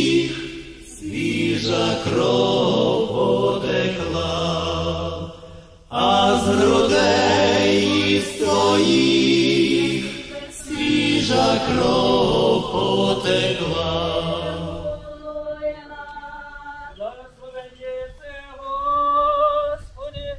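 Church choir singing a slow chant in long, sustained chords. About fifteen seconds in it gives way to a single voice chanting alone with a wavering tremble.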